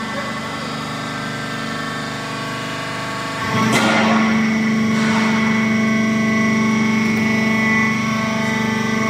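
Hydraulic power unit of a waste tyre baling press running with a steady hum. A little over three seconds in, a brief noisy rush cuts in and the hum grows louder, as the press comes under load.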